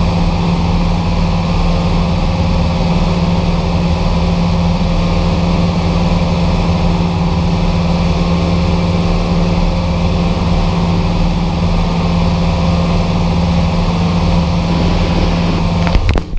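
Cessna 172's piston engine and propeller running steadily at approach power, heard from inside the cockpit as a strong, even low hum. Near the end the sound dips briefly with a couple of clicks.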